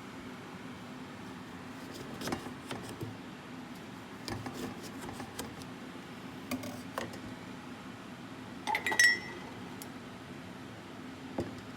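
Glass and kitchen utensils clinking and knocking: scattered light clicks, with the loudest, briefly ringing clink about nine seconds in, over a steady low hum.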